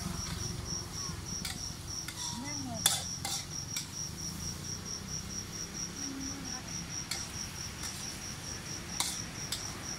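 A cricket chirping steadily, about four chirps a second, over the clinks and scrapes of a metal spatula stir-frying in a wok. The sharpest clanks come about three seconds in and again near the end.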